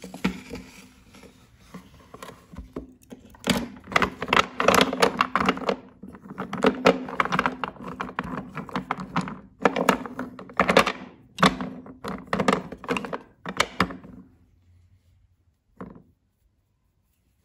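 Broken pieces of white chalky bars knocking and clacking against each other and a ceramic plate as they are handled, a dense run of sharp knocks that dies away near the end with one last knock. A low steady hum runs underneath and stops along with the knocking.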